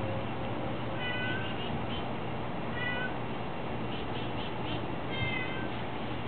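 Elderly cat meowing three times, short calls a couple of seconds apart.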